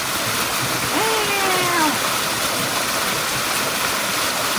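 Steady rushing of a waterfall and its stream. A person's voice gives one drawn-out, falling sound about a second in.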